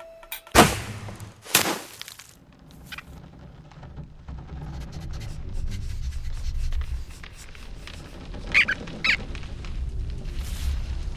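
Cartoon sound effects: two sharp hits about a second apart just after the start, then a low rumble that slowly builds, with two short squeaks about three-quarters of the way through.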